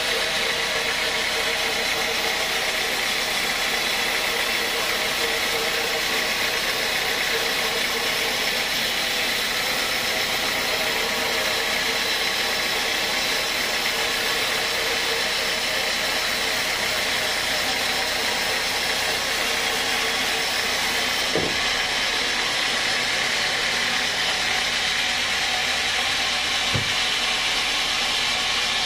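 Large band sawmill running steadily as its blade cuts lengthwise through a teak log, a constant rasping whine. Two short knocks sound in the second half.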